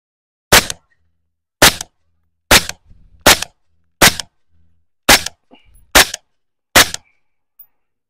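Eight shots from a Radical Firearms integrally suppressed AR-15 in 5.56 with a 10.5-inch barrel, fired semi-automatically at a steady pace of about one a second.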